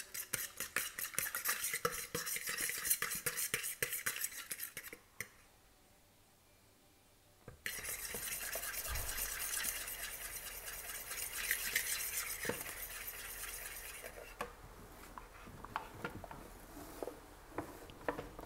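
An egg being beaten in a mixing bowl: a utensil clattering quickly and steadily against the bowl's sides. It breaks off for about two seconds a third of the way through, then goes on, becoming fainter and more scattered near the end.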